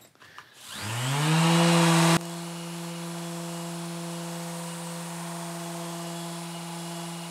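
Mirka Deros electric random orbital sander with a 220-grit disc starting up, its whine rising in pitch for about a second before it settles. About two seconds in the level drops abruptly, and the sander then runs at a steady pitch while sanding the table saw's top.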